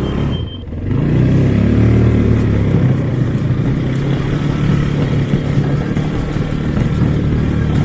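Vehicle engine running under way, the revs picking up about a second in and then holding steady.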